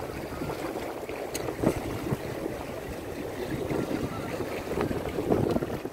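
Wind buffeting the microphone over choppy sea water splashing and slapping against the hull of a small sailing boat under way, with a few sharper slaps.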